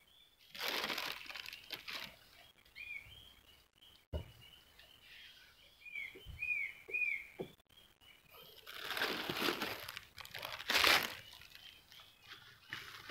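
Crinkling, rustling noise in two stretches, about a second in and again from about eight to eleven seconds, over a bird's repeated short chirps and a few soft knocks.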